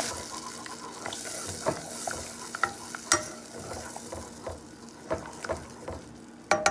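Wooden spoon stirring melted butter and minced garlic in a saucepan on the stove: the butter and garlic sizzle lightly while the spoon scrapes and taps against the pot, with a quick run of knocks near the end.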